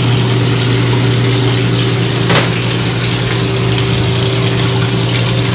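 A steady low mechanical hum, like a small motor or fan running, with a brief click about two and a half seconds in.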